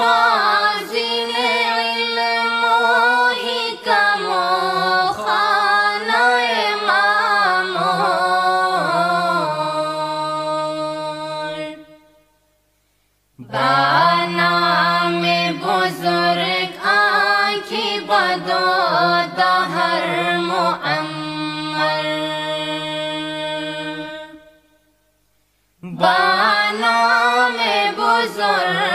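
A solo voice chanting a Persian devotional qasida in long, ornamented melodic phrases, breaking off twice for a short pause between phrases.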